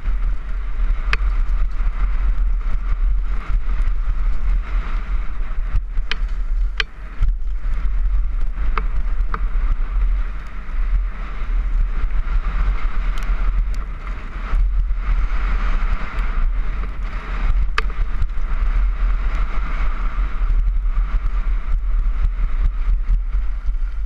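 Helmet-camera audio of a downhill mountain bike rolling fast down a dirt track: a steady rumble of wind on the microphone and tyre noise on the dirt, broken by scattered sharp clicks and knocks as the bike goes over bumps. It eases a little near the end as the bike slows.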